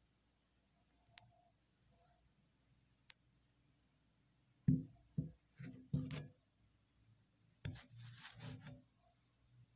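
Quiet handling noise: two sharp single clicks, then four short dull knocks in quick succession midway, and a brief rustle near the end.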